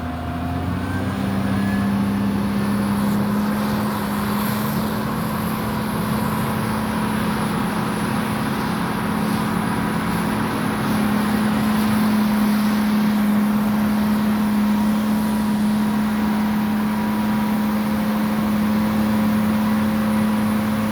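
Engine of a truck or snow-clearing machine running steadily, its note holding at one pitch, slightly louder about halfway through.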